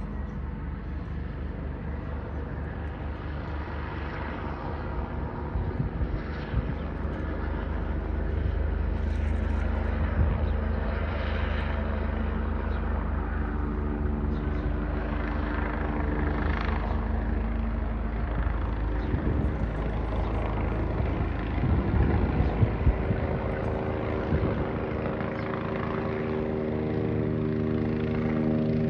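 Helicopter circling overhead: a rapid low rotor thudding under an engine hum that slowly grows louder, with a set of steady tones coming up in the second half.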